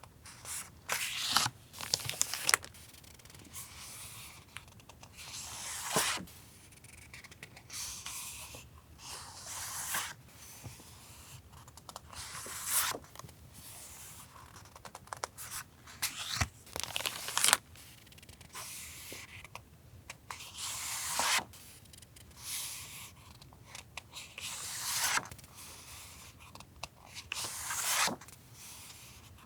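Paper and stationery items being handled: repeated rustling, crinkling swishes every second or two, with light clicks and taps between them.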